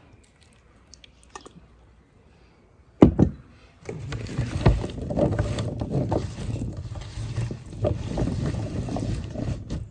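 Hands tossing and mixing oiled, spiced potato cubes in a metal baking tray: a continuous clatter and rustle of potato pieces that starts about four seconds in. Just before it, a single sharp knock about three seconds in.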